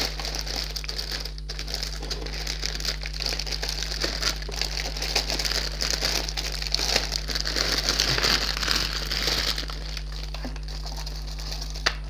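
Clear plastic bags holding model-kit runners crinkling as they are handled and shifted about, busiest for most of the time and easing near the end. A single sharp click comes just before the end.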